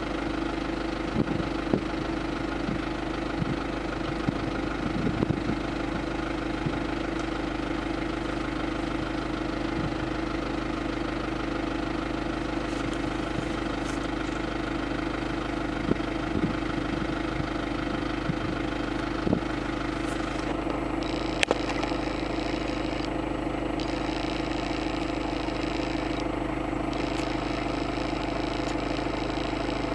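Vehicle engine idling steadily, heard from inside the car, with a few short clicks and knocks over it.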